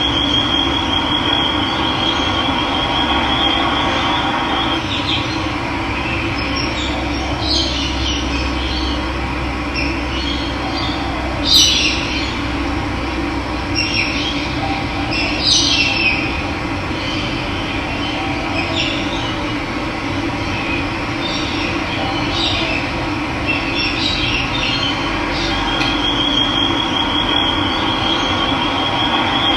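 Steady rush of running water with wild birds calling over it. A high, even trill sounds near the start and again near the end, with short chirps in between.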